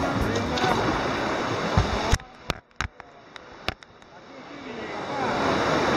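Sea swell sloshing around a kayak and washing against coastal rocks. About two seconds in the sound cuts off suddenly, and a few sharp clicks follow as a hand handles the camera. The water sound then builds back gradually.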